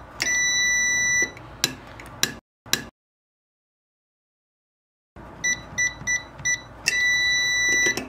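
Enforcer SK-1131-SPQ keypad beeping while the hold-open function is tested: a steady beep of about a second, then a few sharp clicks, then after a dead-silent gap four quick key-press beeps and another beep of about a second.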